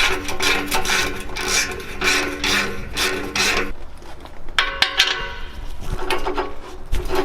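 Hand ratchet wrench working an exhaust bolt under the truck: rasping back-and-forth strokes, about two a second, that stop about three and a half seconds in, followed by a few sharp metal clicks.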